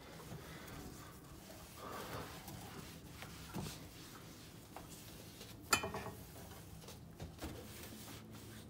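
Faint rubbing of a dry cloth rag wiped over a glass-ceramic stovetop, with a single sharp click about six seconds in.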